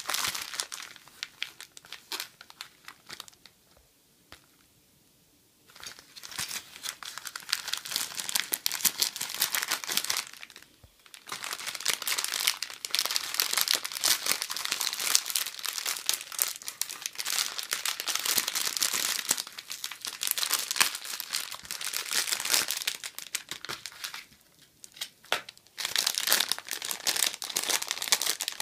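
Plastic packaging crinkling and rustling in the hands while a plastic mailer bag is torn open and the necklace in its clear polybag is pulled out. The crackling stops for about two seconds around four seconds in, dips briefly, and eases again shortly before the end.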